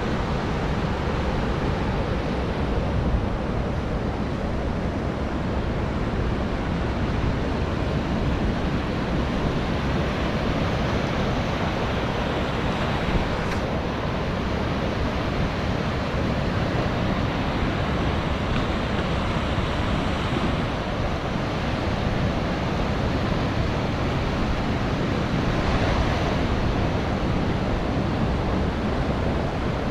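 Steady rush of ocean surf breaking on a sandy beach, with wind rumbling on the microphone.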